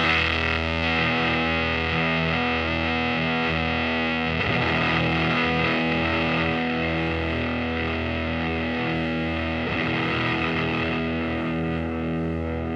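Electric guitar played through the silicon fuzz and OTA compressor of a RoIR CA-108b pedal into a 1970s Fender Super Twin Reverb amp. Heavily fuzzed chords ring with long sustain and are struck again about four seconds in and near ten seconds in.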